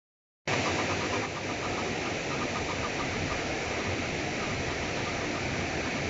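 River water rushing steadily over a low weir, a constant even roar.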